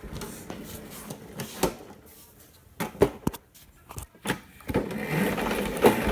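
Razor electric go-kart driving on a concrete floor: its electric motor whirs and the frame gives scattered knocks and rattles. The running sound gets louder near the end as the kart picks up speed.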